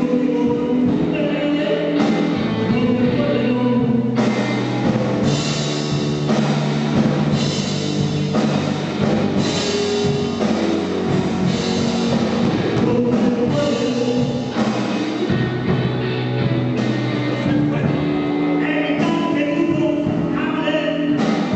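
Rock song with singing, over a band with guitar and drums.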